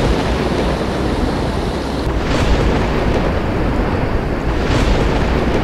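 Loud, steady rushing noise of flowing floodwater and wind.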